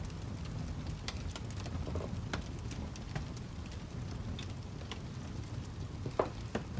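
Wood fire crackling: irregular sharp pops and snaps over a steady low rumble, with a louder pop about six seconds in.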